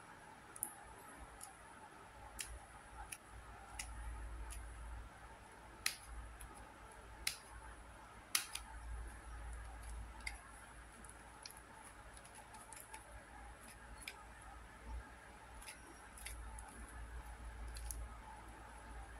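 Irregular plastic clicks and clacks of a QiYi Super Floppy 1x3x3 twisty puzzle as its faces are turned by hand, with a few sharper clacks near the middle.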